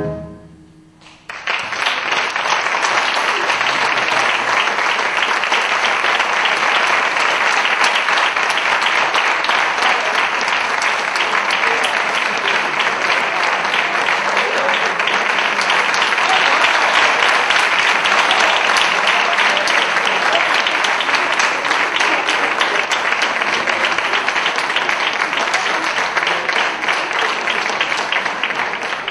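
The band's final brass chord dies away, and about a second later an audience breaks into steady applause. The applause keeps going without a break and fades out near the end.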